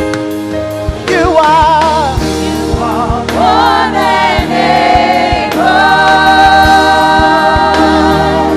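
Gospel worship song: a voice sings a wordless run with vibrato, then holds one long note from about halfway, over sustained chords and regular drum hits.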